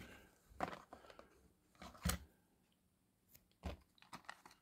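Clear plastic audio cassette cases and cassettes being handled: a few faint, separate clicks and knocks of the hinged plastic lids and shells, the loudest about two seconds in.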